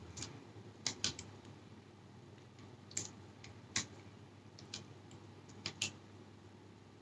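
Metal spoon clinking lightly against a bowl as it scoops broth: a scattered series of about eight short, faint clicks.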